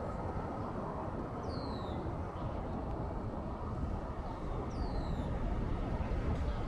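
Steady outdoor city background rumble, mostly distant traffic. A short high whistle slides downward twice, about three seconds apart.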